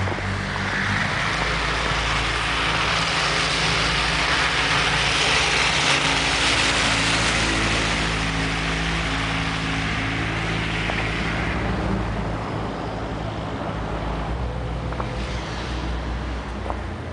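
A USPS mail delivery truck driving past on a slushy street: a low engine hum with tyre hiss on the wet road that swells over several seconds, peaks midway, then fades away.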